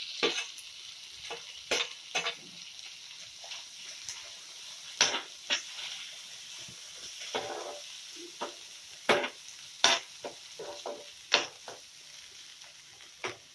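Chopped onions and tomatoes sizzling gently in a non-stick frying pan while a metal spoon stirs them, with irregular sharp clicks and scrapes of the spoon against the pan.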